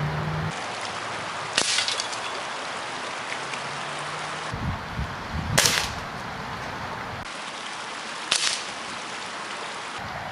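BB guns shot at old CRT television tubes: three sharp cracks a few seconds apart, each with a short tail, over the steady rush of a river.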